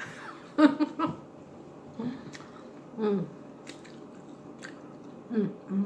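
Close-up mouth sounds after eating: wet lip smacks and sharp clicks, with a few short falling vocal sounds between them.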